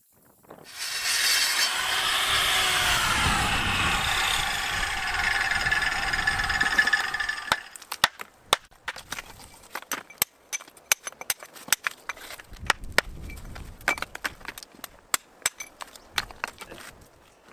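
A loud, steady mechanical whine with a wavering pitch, cutting off abruptly after about seven seconds, then a quieter run of sharp, irregular clicks and knocks.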